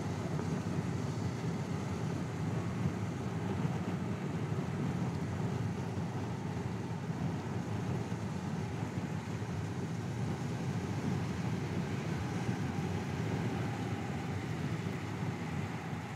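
Steady engine and road noise from a moving car, heard from inside the cabin.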